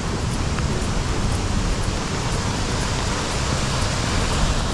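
Steady rushing noise of heavy storm rain and runoff water flowing along a flooded street gutter.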